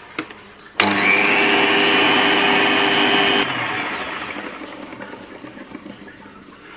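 Electric stand mixer with a wire whisk switched on to whip cream: the motor starts suddenly about a second in and runs with a steady whine, then drops sharply about three and a half seconds in and fades away.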